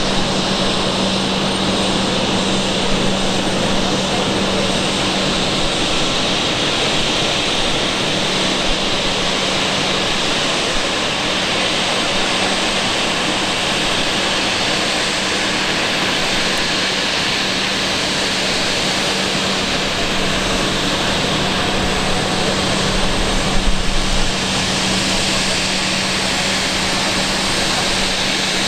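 Embraer 195 airliner's GE CF34-10E turbofan engines running steadily: an even jet hiss with a constant hum underneath.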